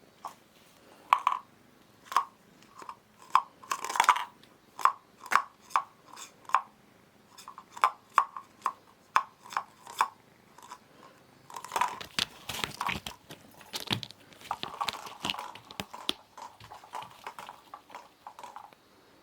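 A kitten crunching and chewing, in short sharp crunches about twice a second that turn busier and more irregular in the second half.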